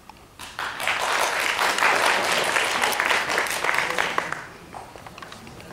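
Audience applauding. It starts about half a second in, holds for about four seconds, and dies away.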